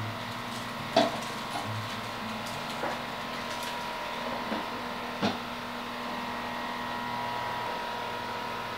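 Several light clinks and knocks of a metal spatula and a glass lid against non-stick frying pans on a gas stove, over a steady background hiss.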